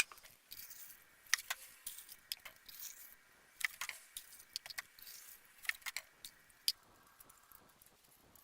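Irregular light clicks and short scrapes of small hard objects being handled, thinning out after about seven seconds.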